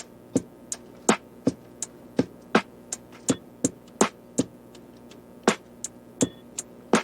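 Background music: sharp, dry percussive hits about three a second over a faint held chord.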